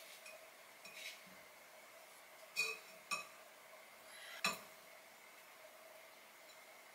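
Kitchen knife clinking against a ceramic plate while sliced food is set out on it: a few light clinks, the three sharpest at about two and a half, three and four and a half seconds in, over a faint steady hum.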